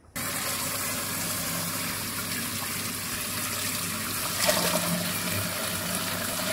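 A steady jet of water from a hose gushing and splashing into a plastic drinking-water cooler as it fills.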